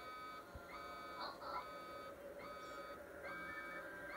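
Electronic warning alarm beeping a little faster than once a second, each beep starting with a brief upward slide, played through a television speaker. It is a robot's dust-storm alert from a film soundtrack, signalling an approaching dust storm.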